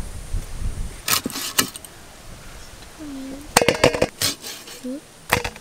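Several sharp clinks and knocks on a stainless steel bowl as pieces of cut silver carp are put into it, with a cluster of clinks past the middle.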